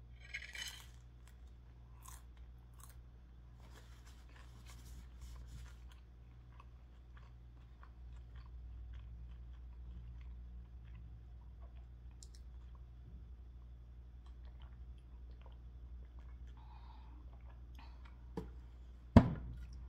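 Close-up chewing of a bite of crusty cheesy garlic bread, with small crunching clicks that thin out after the first several seconds. A sharp knock near the end is the loudest sound.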